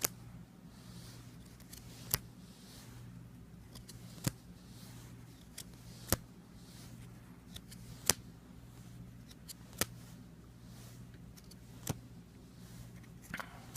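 Trading cards handled one by one, each making a sharp light click about every two seconds, over a steady low hum.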